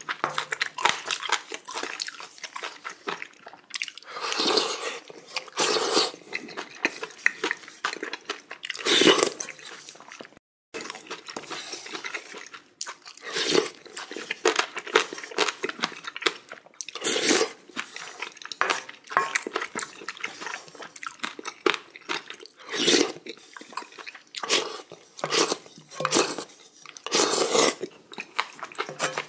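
Close-up eating sounds: a wooden spoon scooping and scraping spicy beef small-intestine hot pot mixed with rice from the pot, and chewing with mouth noises, in short, irregular bouts.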